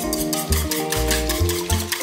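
Upbeat background music with a bass line, sustained notes and busy, quick percussion.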